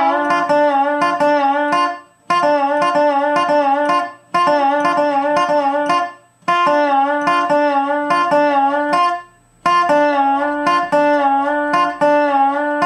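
Dobro resonator guitar played with a steel bar: a short lick over a G7 chord, repeated five times with brief stops between. Each pass has picked notes on the top two strings, cut short by pick blocking, and a bar slide down a fret and back up.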